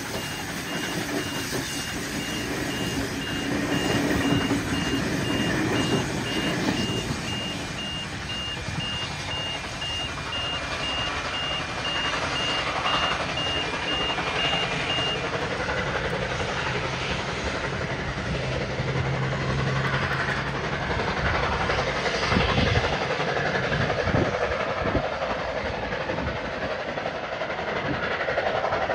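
Steam locomotive 5917, a NSW 59 class 2-8-2, hauling a train of passenger carriages past and away, with its wheels rolling on the rails as it recedes. A high-pitched electronic beep repeats at a quick, steady pace through the first half, then stops.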